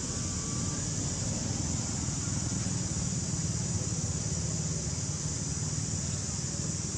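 Steady outdoor background noise: a low wind rumble on the microphone under a constant high-pitched hiss, with no distinct calls or events.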